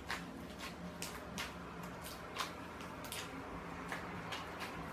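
Slime being kneaded by hand, bouncing modelling clay being worked into the slime base to make butter slime. It gives faint, irregular sticky clicks and squishes, roughly two or three a second.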